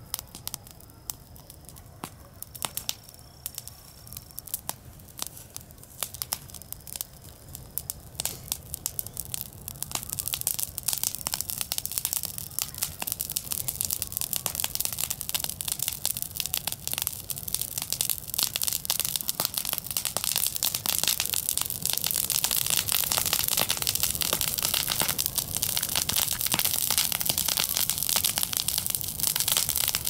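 Dry grass burning, crackling and popping: sparse sharp pops at first, building about ten seconds in to a dense crackle that grows louder again over the last several seconds.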